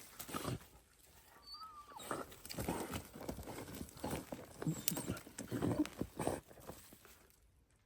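A dog biting, chewing and tearing at a tough tree root while digging out a rat hole: irregular crunching, scraping and scuffling that fades out near the end.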